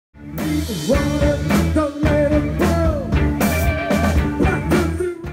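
Live rock band playing, with drums, bass and electric guitars. It starts abruptly just after the beginning and cuts off abruptly at the end.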